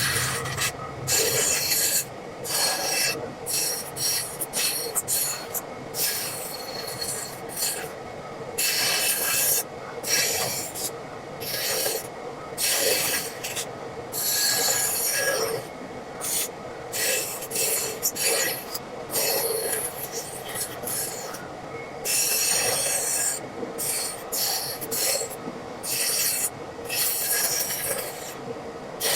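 Woodworking tools scraping and rasping on wood, in many short stretches that start and stop abruptly.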